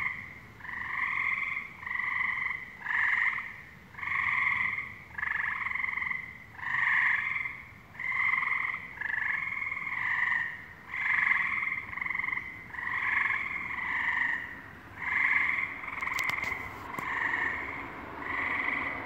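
Frogs calling, a steady run of short calls repeated about once a second.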